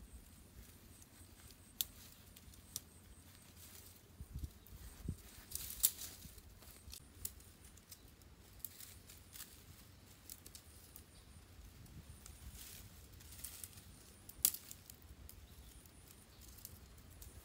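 Thin sticks and leafy branches being handled as poles are set into a tipi-style frame: scattered clicks, light snaps and rustling, with a few sharper cracks about two, five to six and fourteen and a half seconds in.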